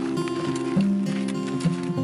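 Background music: a melody of held notes stepping up and down, with percussive strokes.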